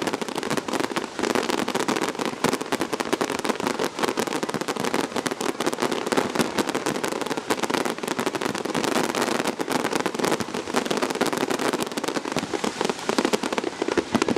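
Fireworks going off: a dense, continuous crackling of many small rapid pops, with no single big bang standing out.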